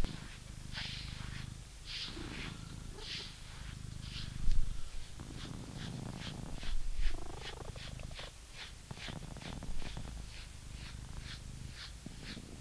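British Shorthair cat purring steadily while a grooming brush is drawn through its fur in short scratchy strokes, about a second apart at first, then roughly two a second. Two louder thumps come about four and a half and seven seconds in.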